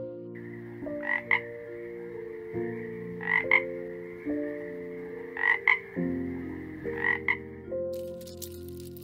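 A frog croaking in pairs of short calls, four pairs about two seconds apart, over a faint steady high buzz.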